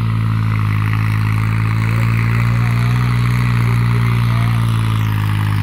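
New Holland 3630 tractor's diesel engine running at a steady, even drone while pulling a tillage implement through dry soil, holding its speed without bogging down under the load.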